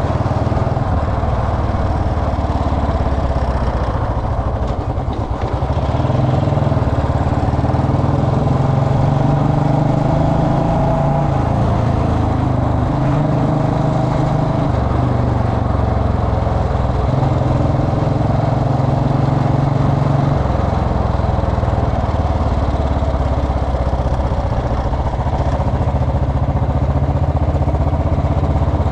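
Royal Enfield Bullet Electra single-cylinder motorcycle engine running steadily, its note shifting up and down several times, with a brief drop in loudness about five seconds in.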